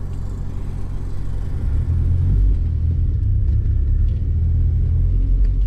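Turbocharged 1.8-litre 20-valve four-cylinder engine of a Mk2 Golf GTI running at low revs, heard from inside the cabin as a steady low rumble that grows louder about two seconds in.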